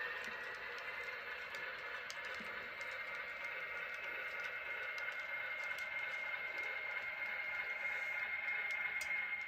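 Model railroad freight cars rolling slowly along the track: a steady whirring rumble with a thin whine running through it and faint, irregular clicks.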